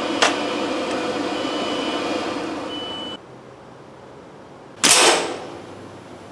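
A single air rifle shot about five seconds in: one sharp crack with a short ring-off. Before it there is steady background noise with a sharp click just after the start, and that noise drops away abruptly about three seconds in.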